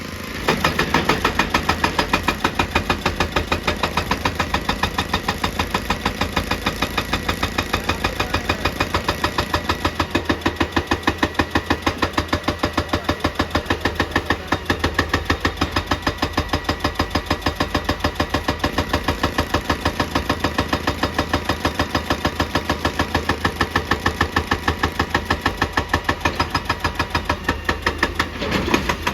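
Excavator-mounted hydraulic rock breaker hammering rock in a fast, even train of blows, over the excavator's steady low engine drone. The hammering starts abruptly just after the start and breaks off briefly near the end.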